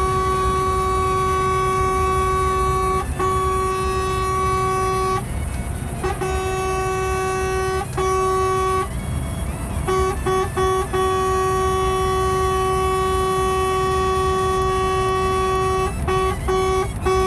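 A vehicle horn with one steady note, blown as a warning at a lorry driving the wrong way on the motorway: long blasts of several seconds with brief breaks, and short quick toots around the middle and again near the end, over steady road rumble from the moving vehicle.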